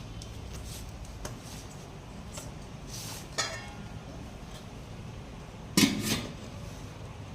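Metal utensil scraping and clinking against a pan over a steady low background, with a ringing clink about three and a half seconds in and a louder clang near six seconds.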